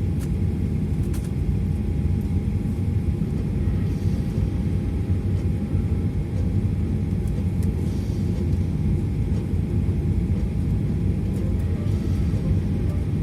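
Steady low rumble of jet airliner cabin noise as the aircraft taxis to its parking stand, with a faint steady whine above it.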